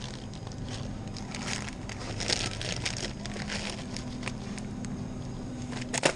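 Plastic bag of salad kit crinkling as it is handled, with a sharp knock about six seconds in as it is dropped into a plastic shopping basket. A steady low hum runs underneath.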